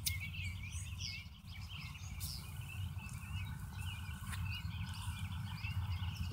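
Small birds chirping and twittering on and off, over a steady low rumble.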